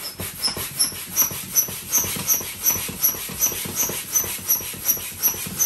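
Manual hand air pump worked rapidly to inflate an inflatable, about three strokes a second. Each stroke gives a rush of air and a short squeak.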